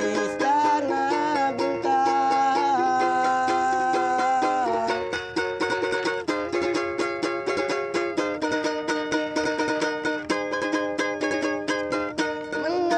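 A ukulele strummed steadily while a voice sings over it in long, held notes.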